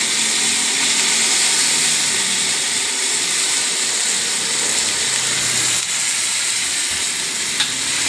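Water just poured into a hot steel wok, hissing and boiling off in a steady rush of steam around fried chicken and aromatics. Two or three light clicks come near the end.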